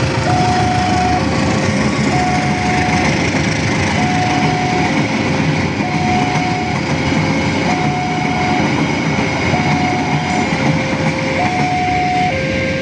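Railway level-crossing warning alarm sounding a two-tone signal that switches between a higher and a lower tone about once a second, warning that a train is approaching. Under it is a steady noise of a passing train.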